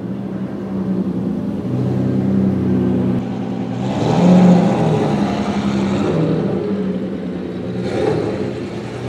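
Lamborghini Diablo VT's V12 with a very loud exhaust, driving off at low speed in an underground car park. Its sound swells as the car passes close by about four seconds in, and rises briefly again near the end.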